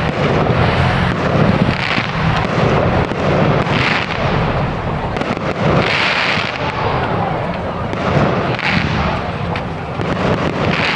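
Large firework display: a continuous stream of bangs and crackles from bursting shells, with a brighter hissing crackle about every two seconds.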